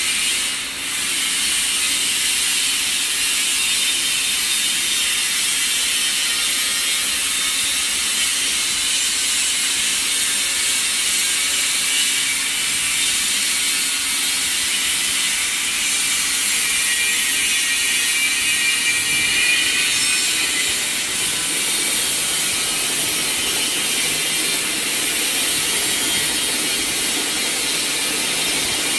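Planetary mixer with high-speed and low-speed mixing shafts running steadily, giving a continuous mechanical running noise from its motors and gear drive, with a faint rising whine about two-thirds of the way through.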